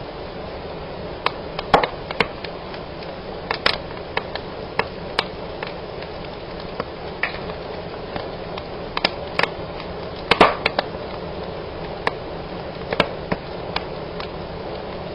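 Wood fire burning in a fireplace, crackling: irregular sharp snaps and pops over a steady hiss, with the loudest cluster of snaps about ten seconds in.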